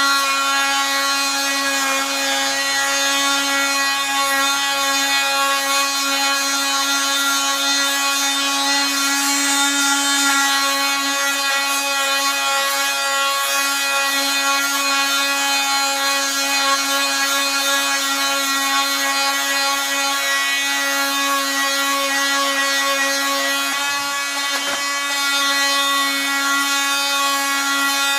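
Drill-driven sander running at a steady high speed with a continuous whine while scuffing the skeg of an outboard motor's lower unit.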